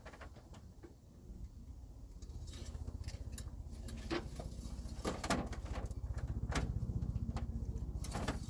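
Fresh motor oil glugging as it is poured from a large jug into the engine's oil filler, a fast low gurgle that builds and grows louder from about two seconds in. A few sharp clicks and knocks come through it in the second half.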